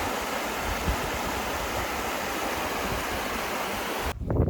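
Steady, loud rushing noise with no distinct pitch or rhythm, cutting off abruptly near the end.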